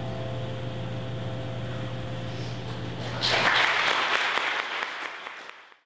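The last sustained notes of the song die away over a low steady hum, then audience applause breaks out about three seconds in and is cut off abruptly near the end.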